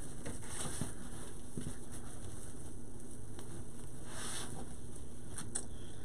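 Soft rustling of plastic deco mesh being spread out and smoothed flat on a cutting mat by hand, with brief swishes about half a second in and again just after four seconds.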